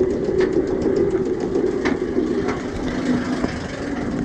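Fenix, a Bolliger & Mabillard wing coaster, running on its track: a continuous low rumble with a pitched drone that drops in pitch about three seconds in, and scattered clicks.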